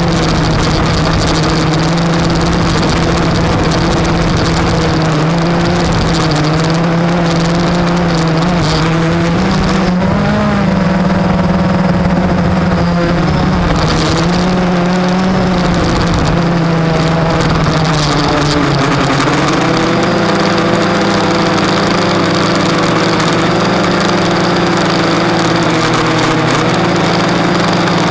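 Blade 350 QX quadcopter's electric motors and propellers running in flight, a steady droning whine whose pitch wavers up and down with the throttle, over a rushing noise.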